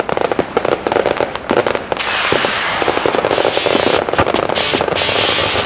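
Firecrackers going off in a rapid run of crackling pops. About two seconds in, a denser, steadier noise takes over.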